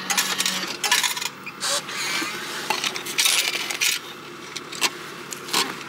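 Parking payment machine taking in a 1000-yen note, with a short hum as the note is drawn in. Then change coins clatter and rattle in the return tray as a hand scoops them out, with a few sharp clicks near the end.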